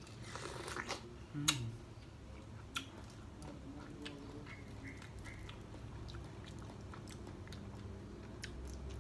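A person biting into fresh pineapple flesh and chewing it. There is a noisy bite in the first second, then steady wet chewing with scattered small clicks.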